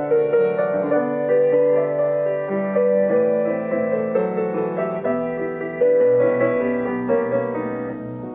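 Slow, gentle piano music, with sustained notes changing about every half second to a second.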